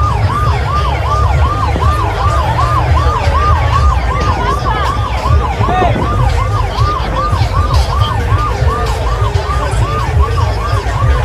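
A siren-like yelp, its pitch sweeping up and down quickly about three times a second in an unbroken run, over a heavy low rumble.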